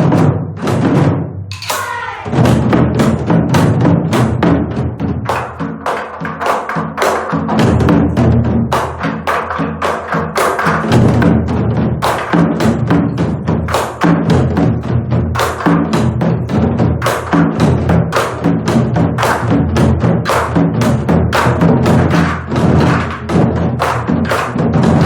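Korean barrel drums (buk) struck in a fast, steady rhythm over traditional Korean accompaniment music, as in the ogomu five-drum dance. A falling glide is heard in the first two seconds before the strokes settle into their pattern.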